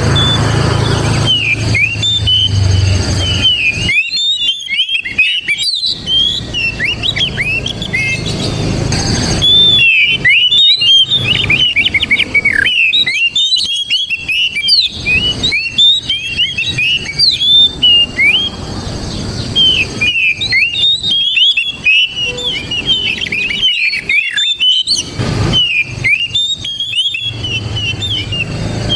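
Oriental magpie-robin singing a loud, rapid run of varied whistled and chirping notes, broken by a few short pauses.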